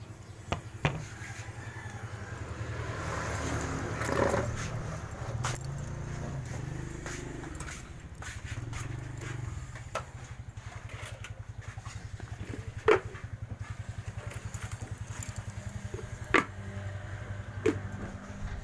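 A small engine running steadily with a low, pulsing hum, swelling louder about four seconds in. A few sharp clicks and knocks of handling are scattered through it.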